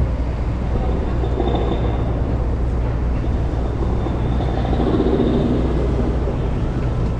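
City street traffic on a busy avenue: a steady low rumble of vehicle engines and tyres.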